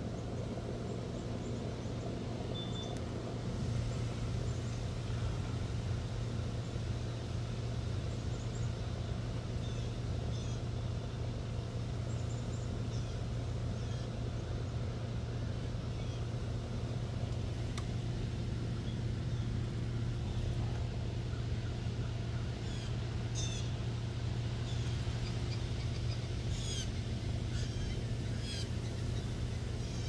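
Outdoor yard ambience: a steady low hum with a wash of background noise, and short high bird chirps now and then, coming more often in the last third.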